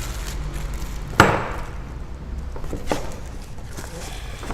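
Two sharp knocks as brush-cutter parts are handled and set down: a loud one about a second in with a short ring after it, and a lighter one near three seconds.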